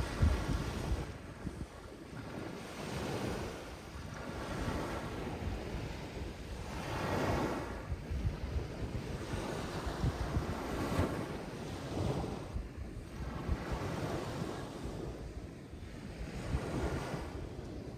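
Sea waves washing in, swelling and ebbing every couple of seconds, with wind buffeting the microphone.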